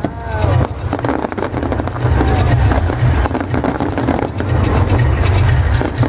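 Fireworks display: dense crackling and repeated deep booms, with a few falling whistles right at the start.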